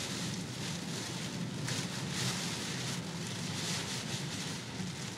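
Typhoon wind gusting in bursts with rain, heard from inside a vehicle that the wind is shaking, over a steady low hum.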